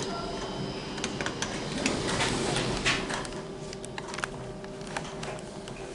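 Lift doors sliding and a lift car starting off, with scattered clicks and knocks over a steady low hum.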